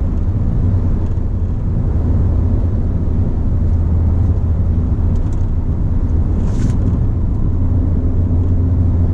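Ford Fiesta ST driving: a steady drone of engine and road noise, with a brief hiss about two-thirds of the way through.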